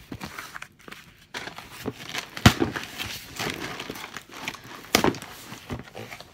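Cardboard shipping box being pried open by hand: cardboard and packing tape rustling and tearing, with scattered clicks and two sharp knocks about two and a half and five seconds in.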